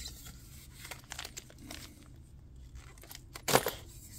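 Plastic bubble wrap crinkling and crackling in scattered bursts as a stainless-steel slip-on exhaust is unwrapped and handled, with one sharp knock about three and a half seconds in.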